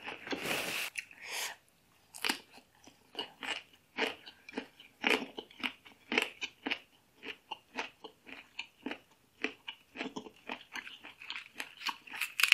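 Close-up chewing and crunching of green papaya salad with raw lettuce and basil leaves: many short, irregular crunches with brief pauses between mouthfuls.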